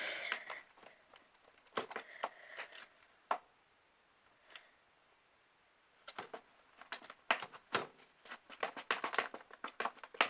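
A spoon stirring slime in a mixing container, making irregular clicks and sticky taps against its sides. It goes almost quiet about four seconds in, then the clicking picks up again, quicker.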